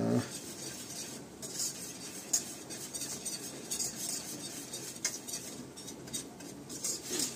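A spoon stirring and scraping roasting flour for flour halva (un helvası) in a steel pot, with irregular scrapes and clinks against the pot.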